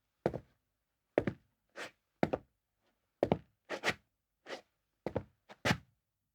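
Footsteps on a hard floor, the shoes scuffing as they land: about ten steps at a slow, uneven pace, some landing as a quick heel-then-toe double hit.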